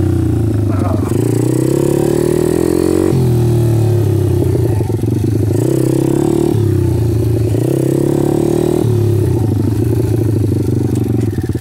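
Single-cylinder four-stroke engine of a Kawasaki KLX pit bike with a BBR 143 cc big-bore kit, being ridden: the engine note climbs as it revs, then drops at each gear change, several times over.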